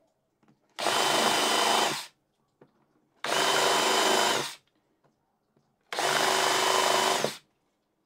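Power drill fitted with a countersink bit, running at steady speed in three short bursts of just over a second each, countersinking pre-drilled screw holes in wood.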